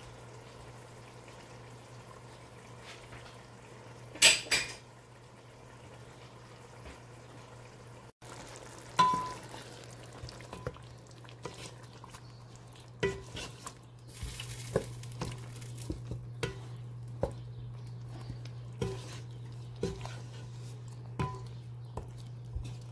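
Metal fork stirring and turning chicken in a cooking pot, clinking and scraping against the pot about once a second in the second half, over a low steady hum. A single sharp clatter comes about four seconds in.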